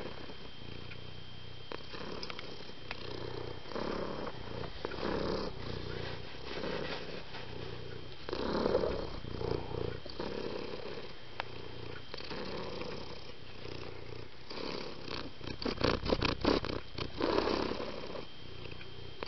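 Domestic cat purring close up, in repeated swells. About fifteen seconds in comes a quick run of sharp clicks and rustles.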